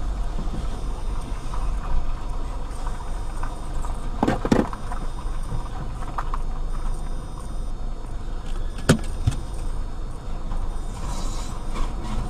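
Steady low rumble of a car, with a few short sharp clicks or knocks about four and a half seconds in and again about nine seconds in.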